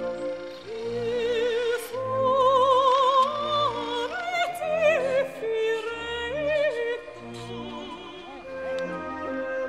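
Background classical music: an operatic melody sung with strong vibrato over sustained orchestral chords.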